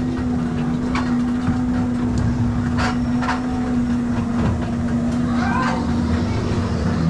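Dino Jeeps ride car running along its track: a steady motor hum and rumble, with a few short clicks and clacks from the car on the rails.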